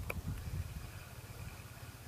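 Wind rumbling on the microphone, with a short click right at the start and a faint steady high whine.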